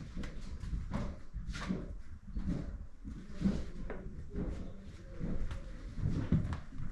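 Irregular knocks, thumps and clatters, mostly low and dull, with no steady rhythm.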